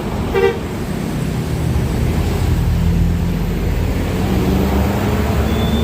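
Bus engine running in street traffic, its low drone growing louder and rising slightly in pitch. A short horn toot sounds about half a second in, and a thin high whistle comes near the end.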